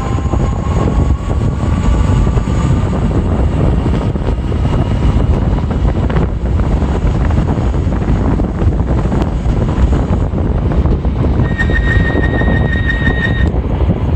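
Electric bike on a test ride: heavy wind rumble on the microphone over a motor whine that rises in pitch for the first couple of seconds as the bike speeds up. A rapid, high-pitched chirping starts near the end.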